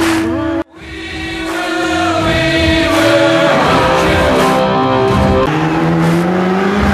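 Soundtrack music with long held sung, choir-like notes over sustained chords that change every couple of seconds. It cuts out abruptly under a second in and fades back up over the next second.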